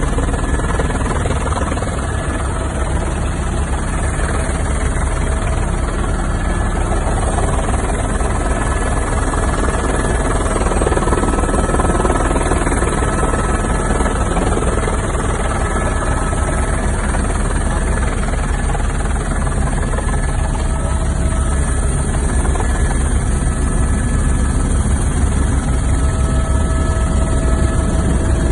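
Helicopter turbine engine and main rotor heard from inside the cabin in flight: a loud, steady drone with a deep low end and a thin steady whine over it.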